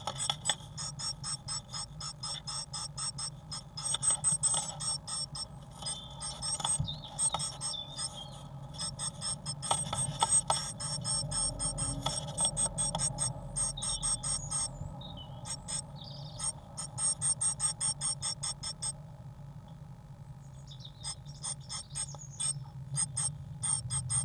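Great tit in a wooden nest box, its feet and bill scratching and tapping on the wood in a rapid, even run of ticks, several a second, that pauses for about two seconds near the end.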